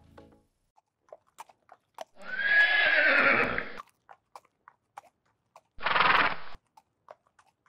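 Horse whinnying twice: a long neigh starting about two seconds in and a shorter one around six seconds, with scattered hoof clip-clops between.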